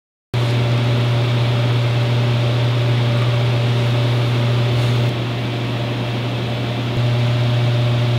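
A loud, steady low hum with a hiss over it, starting abruptly just after the opening silence; it drops slightly for about two seconds in the middle, then returns to full level.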